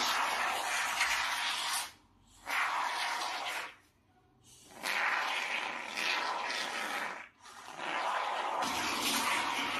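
Aerosol can of expanding foam spraying with a hiss, in four long bursts separated by short pauses.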